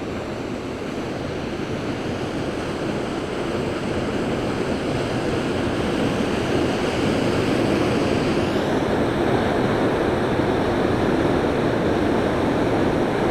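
Steady rush of a large waterfall, North Falls, pouring into its plunge pool, growing slightly louder over the span.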